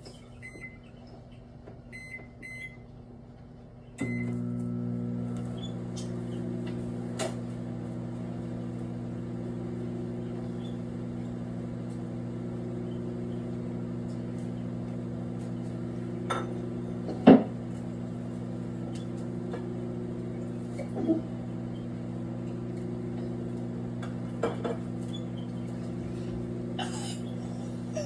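Microwave oven: a few short keypad beeps, then about four seconds in the oven starts up and runs with a steady low hum. A few sharp clicks sound over the hum, the loudest about two-thirds of the way through.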